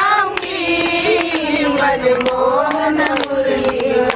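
A group of Indian women singing a devotional chant together in unison, long held notes sliding between pitches, with hand claps keeping time.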